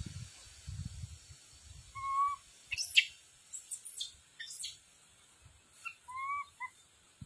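Animal calls: a few short whistled calls, one flat and one arched in pitch, with quick high chirps between them.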